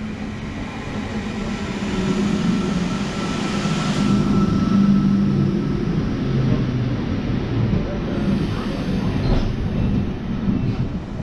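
Train running on rails: a steady rumble that swells a few seconds in and then eases a little, with a faint thin high tone over it.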